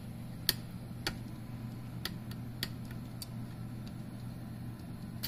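Small sharp clicks and taps, about six of them at uneven intervals, as parts and wires inside a Q-switched Nd:YAG laser machine are handled during disassembly, over a steady low hum.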